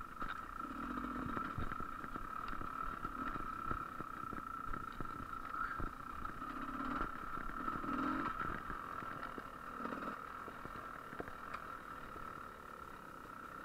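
GasGas EC300 two-stroke enduro motorcycle engine running under a rider, the throttle opening and closing so the engine note swells and eases every second or two, with scattered knocks and clicks from the bike over rough ground.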